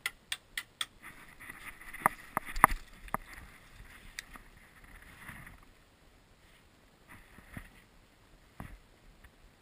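Airsoft gunfire: a quick string of four sharp snaps, then a scatter of louder cracks about two to three seconds in and a few more later, with rustling in between.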